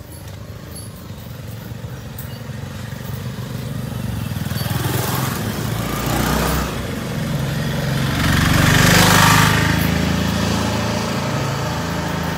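Small motor vehicle engine running, growing louder and peaking about nine seconds in as it passes close, then easing off slightly.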